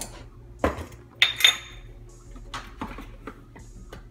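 Kitchen containers being handled on a countertop while measuring dry ingredients: a dull knock, then two sharp ringing clinks about a second in, followed by lighter taps and clicks.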